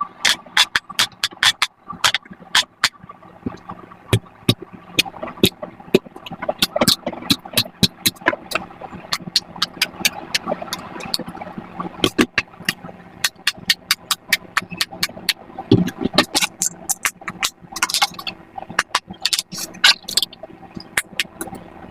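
Silicone pop-it fidget toy being pressed bubble after bubble, making quick irregular pops, two to four a second, over background music.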